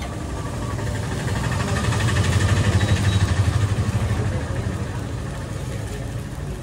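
Engine of a passing motor vehicle: a low, rapidly pulsing rumble that swells to its loudest around the middle and then fades.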